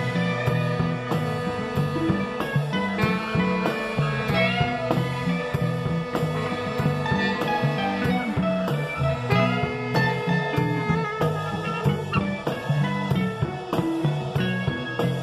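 Rock band playing: electric guitar over an electric bass line, with a drum kit keeping a steady beat.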